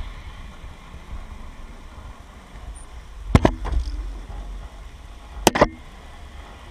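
Low wind rumble on an action camera's microphone as a skier leaves a chairlift, with two sharp double clacks of ski gear, the first about three and a half seconds in and the second about two seconds later.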